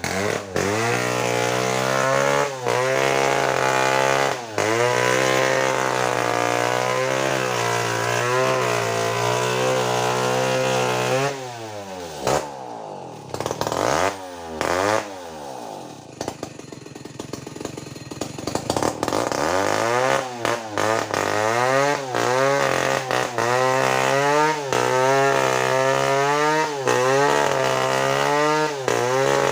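Stihl two-stroke chainsaw cutting through a coconut trunk, its engine pitch dipping and recovering again and again as the chain bites. About halfway it backs off to a lower, quieter speed for several seconds, then revs up and cuts again.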